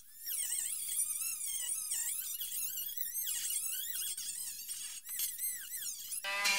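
Hand-held rotary tool spinning a small wire wheel bit against the steel of a rusty fuel tank, scrubbing rust back to bare metal. Its high-pitched whine keeps wavering up and down as the wheel bites and eases off. Near the end a lower-pitched tool sound cuts in.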